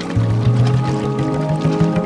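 Background music with a prominent bass line.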